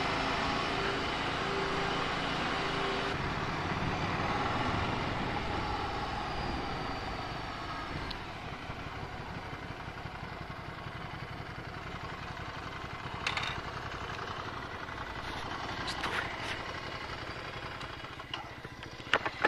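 Ducati Scrambler Sixty2's 400 cc air-cooled V-twin running as the motorcycle rides slowly along a narrow road, then quieter from about eight seconds in as the bike slows and stops. Several sharp clicks and knocks come in the last seven seconds.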